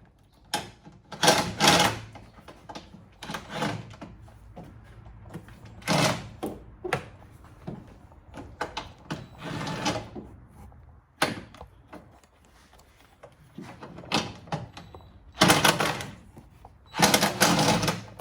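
Impact wrench run in several short bursts with a rattling hammer, loosening the subframe-support and under-panel bolts.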